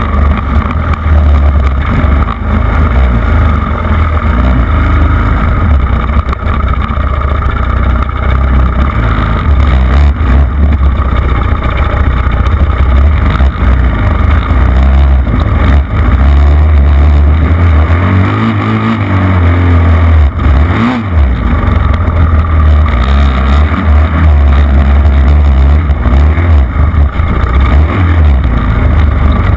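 Off-road vehicle engine running hard under throttle, with heavy wind buffeting on the microphone. It briefly eases off about two-thirds of the way through.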